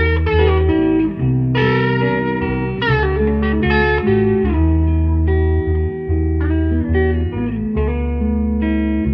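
Bluesy electric guitar jam in E minor: a lead guitar, lightly overdriven through a Vox amp, picks single-note phrases over a looped bassline made by pitching the guitar down an octave. The low bass notes are held under many quick plucked notes.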